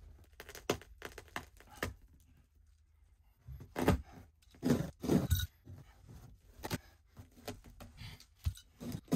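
Carpet being ripped up and cut with a utility knife: an irregular string of short, sharp tearing and scraping noises, loudest around four to five and a half seconds in.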